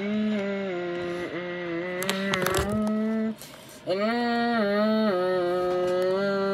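A voice humming a long, wavering drone with the mouth, the kind of engine noise made for a toy helicopter in play. It comes in two long stretches with a short break a little past three seconds in. A few quick knocks from handling the toys come about two seconds in.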